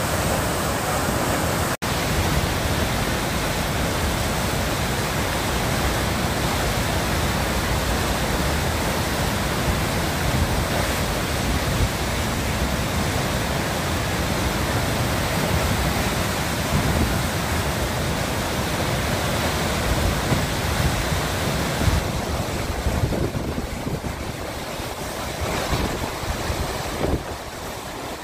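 Steady rushing roar of fast river water churning through a standing wave, with a brief dropout about two seconds in and a slightly duller, quieter sound in the last few seconds.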